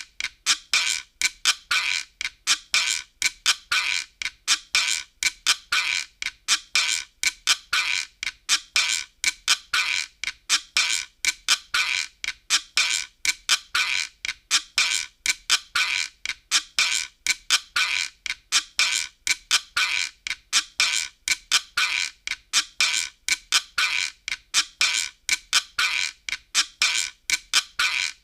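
Optigan optical organ playing a looping percussive pattern: sharp, bright clicking strokes about three a second, with almost no bass.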